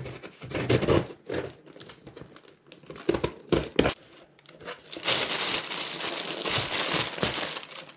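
Cardboard shipping box being cut open and its flaps handled, with scattered knocks and rustles. About five seconds in, inflated plastic air-pillow packing starts crinkling continuously as it is pulled out of the box.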